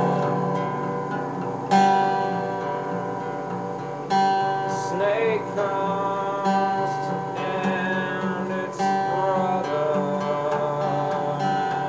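Acoustic guitar music: a chord strummed about every two and a half seconds and left to ring between strikes, recorded through an old tape recorder.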